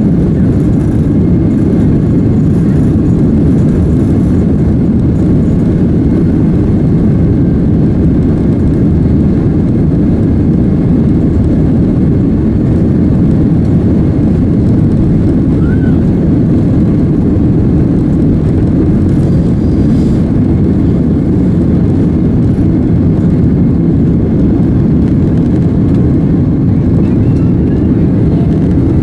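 Boeing 767 cabin noise at takeoff thrust, heard from a window seat over the wing: a loud, steady low rumble of the jet engines and airflow through the takeoff roll and lift-off.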